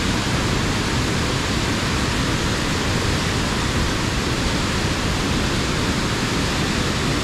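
River water rushing steadily, an even hiss that does not change.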